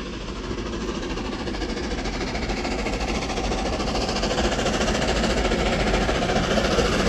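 LNER A4 Pacific steam locomotive 60007 Sir Nigel Gresley, a three-cylinder engine, working a train towards the listener, its exhaust beat and running noise growing steadily louder as it approaches.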